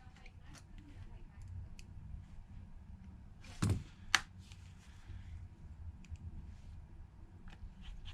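Faint scattered clicks and light taps over a low steady hum, with two louder short taps about three and a half and four seconds in.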